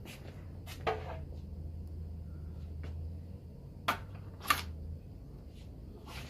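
A few scattered light clicks and knocks, the loudest about four and a half seconds in, over a steady low hum that fades about five seconds in.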